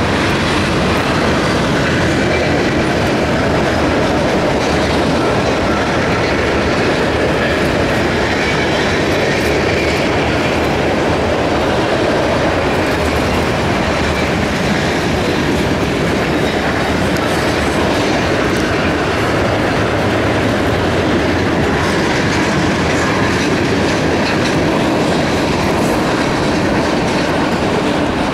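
Freight cars of a CSX trash train loaded with waste containers rolling past steadily, steel wheels clicking over the rail joints.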